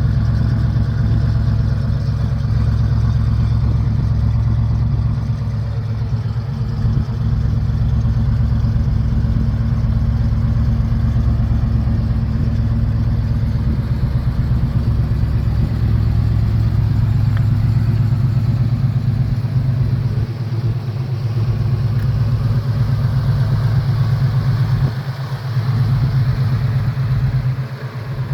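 1965 Ford Mustang fastback's A-code 289 V8 running at a steady idle, a deep, even exhaust rumble with no revving, with brief dips in loudness in the second half.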